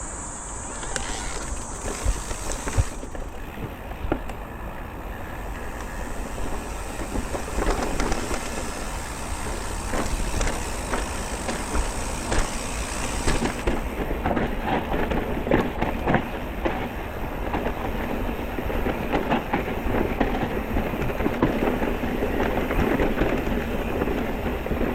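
Electric mountain bike riding over a rough trail, the bike rattling and clattering with many small knocks, over a constant low rumble.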